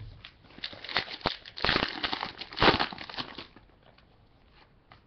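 Foil wrapper of a 2007 Contenders Football card pack crinkling and tearing as it is opened by hand, in a few bursts over about three seconds, the loudest about a second and a half and two and a half seconds in, then fading to faint handling.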